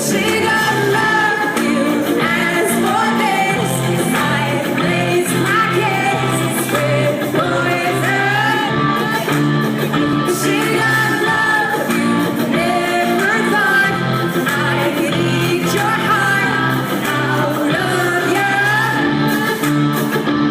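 Live rock-pop song played loud through a venue's sound system: a woman's lead vocal over band backing with guitar, bass and drums, echoing in a large hall.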